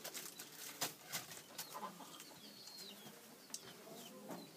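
Faint chicken clucking and small bird calls in the background, with scattered light clicks.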